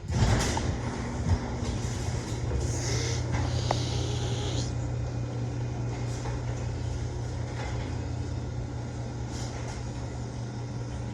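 Overhead Door Odyssey Legacy chain-drive garage door opener running, raising the door: a steady motor hum with chain and door rattle that starts abruptly and fades slightly as the door travels up. It runs smoothly.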